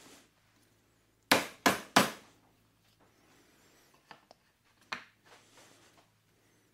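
Three quick, sharp taps a third of a second apart, then a couple of faint knocks, as end caps are tapped into the ends of the table saw's frame components.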